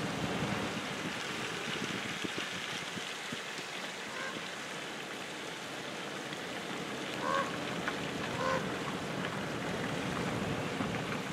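Car rolling slowly along an unpaved park road, its tyres and the road making a steady noise inside the cabin. Three short honk-like bird calls come through about four, seven and eight and a half seconds in.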